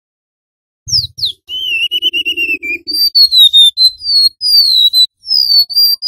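Golden-bellied gerygone (remetuk laut) singing: two quick falling whistles about a second in, then a wavering, trilled note, then a run of high, clear falling whistles.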